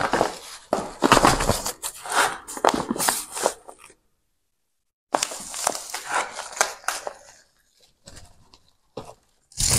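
Crinkling of a kraft-paper bag of potting substrate as it is handled and tipped, with loose substrate pouring and shifting into a pot. It comes in two stretches with a dead-silent break of about a second in the middle.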